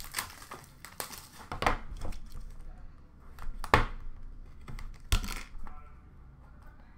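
Plastic wrap crinkling and cardboard scraping as an Upper Deck Splendor hockey card box is unwrapped and its outer sleeve slid off. Several short rustles, the loudest near the middle and about five seconds in, quieter near the end.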